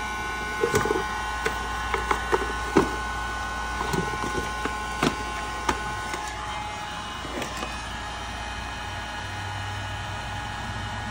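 Irregular sharp clicks and cracks of plastic as a 2016 Dodge Charger headlight housing is taken apart for repair, over a steady machine whine. The clicks die away about six seconds in, leaving the whine.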